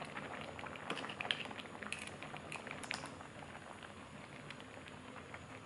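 Clam soup bubbling at a boil in a stainless steel pan, with many small pops and crackles that thin out after about three seconds.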